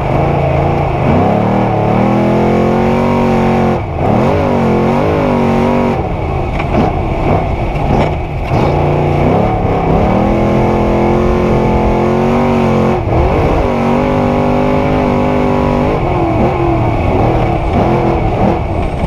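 A 900-horsepower Trophy Truck engine heard from inside the cab at race pace, revving hard and holding high revs. The revs dip briefly about four, eight and thirteen seconds in as the throttle comes off, then climb again.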